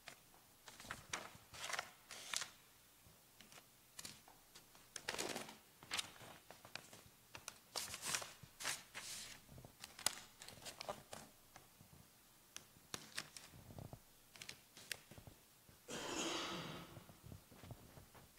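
Faint handling noises in a quiet church: scattered small clicks and soft rustles, with one longer rustle near the end.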